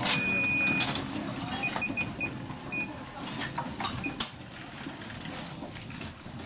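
Electronic shop till beeping: one long beep, then a run of short key-press beeps at the same pitch, over the murmur of a crowded shop.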